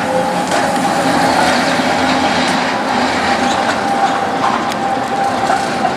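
Tram running on its rails, a steady rumble of wheels on track with a continuous whine held at one pitch.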